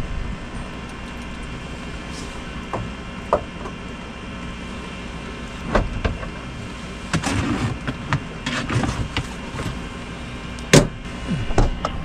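Scattered clicks and knocks of camp lights being handled and switched on, the loudest about eleven seconds in, with some rustling, over a steady low hum.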